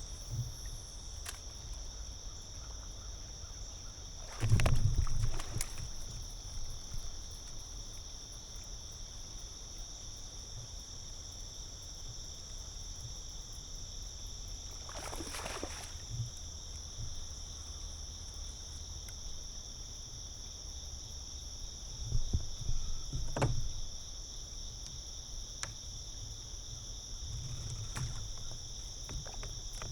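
Kayak on a creek: low water and hull noise throughout, with louder knocks and splashes about 4 s, 15 s and 23 s in, over a steady high-pitched hum.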